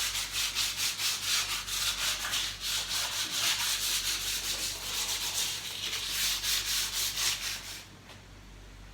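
Sanding the fireplace surface, rubbed in quick back-and-forth strokes several times a second, to prepare it for painting. The strokes stop about a second before the end.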